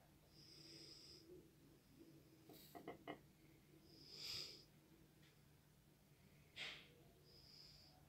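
Near silence: faint room tone with a few soft hissing sounds and a small cluster of quiet clicks about three seconds in.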